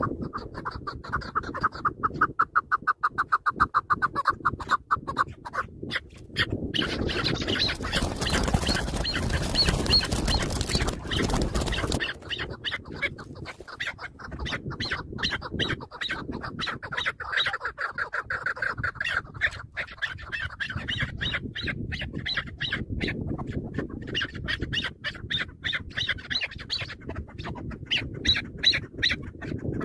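Chukar partridges calling in rapid runs of repeated notes. A stretch of loud rustling noise comes from about seven to twelve seconds in.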